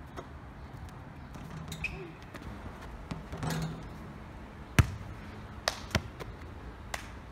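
A basketball bouncing on an outdoor court: four sharp thuds in the second half, the first the loudest.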